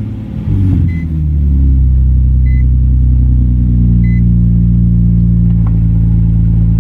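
Nissan 350Z's 3.5-litre V6 just fired up on its first start after an oil change: the start-up rev flare falls away over the first second or so, and the engine then settles into a steady idle.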